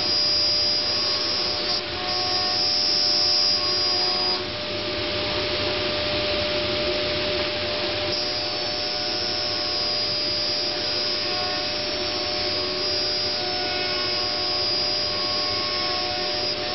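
Multicam 3000 Series CNC router running: its spindle gives several steady whining tones over a loud rush of air from its suction. The high part of the whine drops out about four seconds in and comes back about four seconds later.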